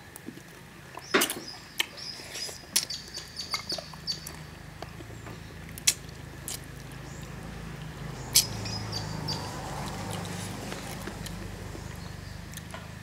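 A person eating close to the microphone: irregular chewing, smacking and slurping on spicy shrimp and chicken feet, with sharp wet clicks and a few short squeaks.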